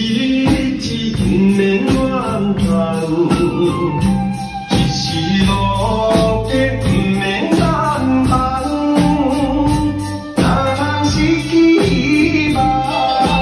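Drum kits played along to a song with singing: a steady beat of drums and cymbals under the vocal melody, with a brief break a little past ten seconds in.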